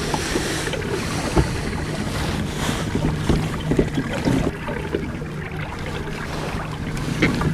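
Wind on the microphone and open water around a kayak under way, with the steady low hum of its electric trolling motor. A few short knocks of the rod and reel being handled.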